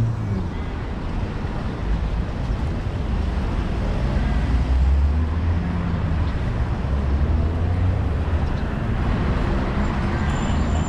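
City street traffic: cars running past, with a steady low engine rumble that swells for a few seconds about two seconds in.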